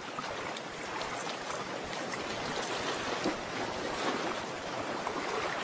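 Water trickling and splashing over rocks: a steady rushing hiss with many small ticks and drips.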